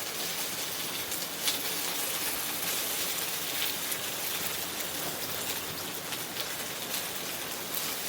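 Steady rain falling, a dense hiss of drops with a sharper tap about a second and a half in.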